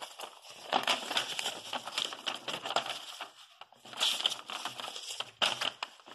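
Paper rustling and crinkling as a folded multi-panel paper leaflet is unfolded and flattened by hand, in uneven spurts with brief pauses.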